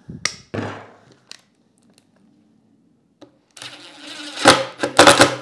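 A few short sharp clicks, then about three and a half seconds in a cordless impact driver starts up, driving a screw through a metal drawer runner into plywood, loudest in several bursts near the end.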